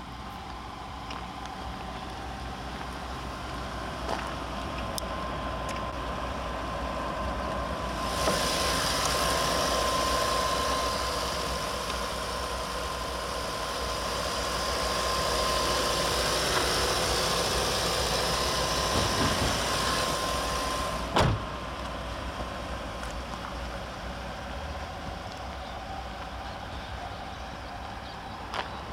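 Audi A8L's 6.0-litre W12 engine idling steadily, louder for a stretch in the middle. A single sharp thump about two-thirds of the way in.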